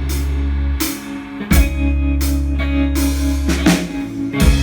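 Live rock band playing between sung lines: drum kit hits and sustained bass notes under electric guitar.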